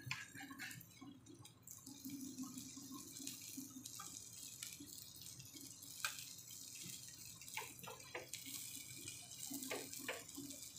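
Bitter gourd slices shallow-frying in oil on a flat tava: a faint steady sizzle that grows stronger about two seconds in, with a few sharp clicks and scrapes of a metal spatula against the pan as the slices are turned.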